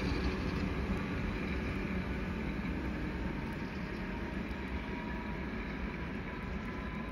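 Electric locomotive-hauled passenger train running away down the line, its steady rumble slowly fading.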